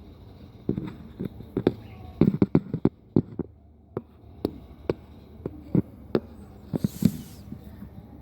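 A series of irregular sharp taps and knocks, about twenty over several seconds, loudest in a quick cluster two to three seconds in, with a short hiss about seven seconds in.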